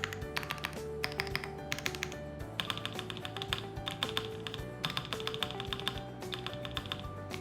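Mechanical keyboard typing: quick runs of key clicks in short bursts, over background music.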